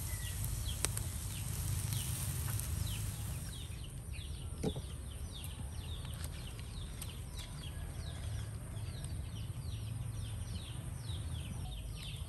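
Outdoor birds chirping in a long series of short, quick falling chirps, a few a second, over a steady low rumble.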